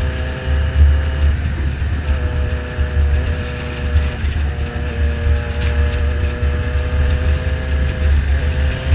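Motorcycle engine running at a steady cruising speed, its note dipping briefly a few times as the throttle eases, with wind buffeting the microphone.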